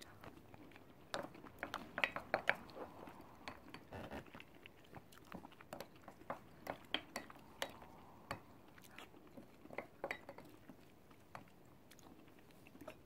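Spoon scraping and clinking against a white ceramic ramekin, gathering up the last of the garlic rice in irregular clusters of sharp clicks and short scrapes.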